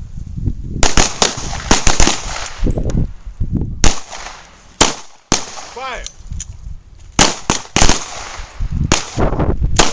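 Several pistols firing single shots on command from a line of shooters, about a dozen shots in ragged, uneven succession, some coming close together.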